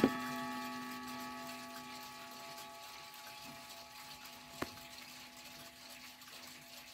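A small wooden mantel clock, a Pfeilkreuz timepiece without chimes, being handled. A sharp click at the start is followed by a metallic ringing that fades over about two seconds. A second click comes about four and a half seconds in as the glass front bezel is opened.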